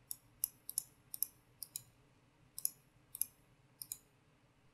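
Computer mouse buttons clicking, a run of sharp, faint clicks mostly in quick pairs of press and release, several a second.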